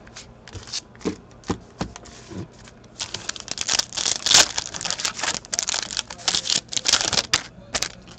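A few light clicks and taps as sealed foil card packs are handled, then about three seconds in a foil trading-card pack is torn open, its wrapper crinkling and crackling for several seconds before stopping near the end.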